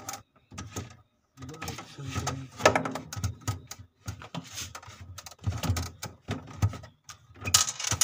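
Irregular clicks, knocks and scraping from hand and tool work on a fridge's freezer evaporator plate, as a hard-to-reach side screw holding the plate is worked at.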